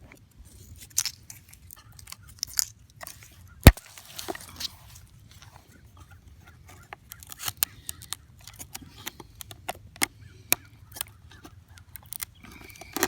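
Scattered clicks, knocks and light rattles of a shot-up chainsaw's broken plastic housing and parts being handled, with one sharp knock about four seconds in.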